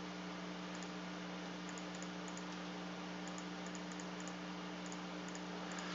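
Steady low electrical hum and hiss with a few faint, scattered clicks from working a computer's mouse and keys.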